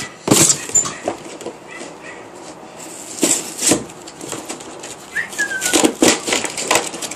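Cardboard and plastic toy packaging being handled and pulled open, in irregular crinkling, scraping rustles, with a brief high squeak about five seconds in.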